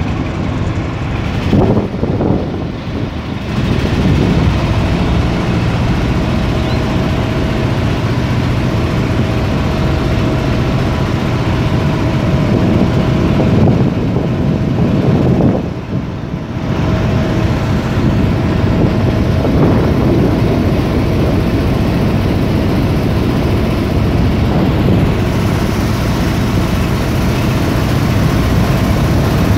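Motor boat's engine running steadily under way, with a constant low rumble and a faint steady hum. It drops briefly about halfway through.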